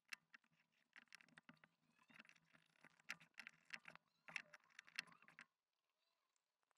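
Faint, irregular scratching and small clicks of a utility knife blade cutting through a thin PE foam sheet along the edges of a keyboard PCB, pressed lightly against a mousepad underneath. The cutting stops about five seconds in.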